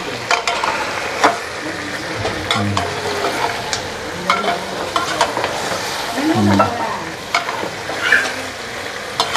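Pork with tomato and onion sizzling in an aluminium pressure cooker as a metal spatula stirs it. The spatula clicks and scrapes against the pot many times over a steady frying sizzle.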